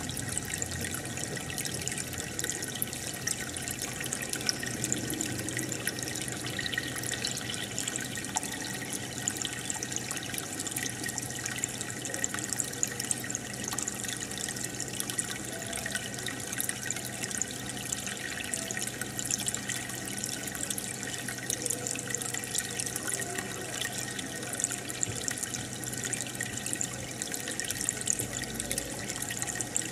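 Aquarium aeration: a steady stream of air bubbles breaking at the water surface, heard as continuous bubbling and trickling with fine crackles, over a constant low hum.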